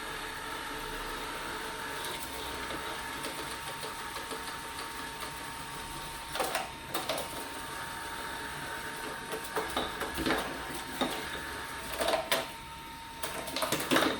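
ELARI SmartBot Lite robot vacuum running with a steady hum and a thin whine. From about six seconds in come a series of short plastic knocks and clatters, several of them near the end.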